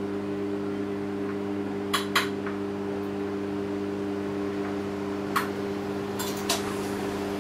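Cutlery clinking against a plate as food is served: a pair of light clinks about two seconds in, and a few more from about five seconds. Under them, the steady electric hum of a running kitchen appliance.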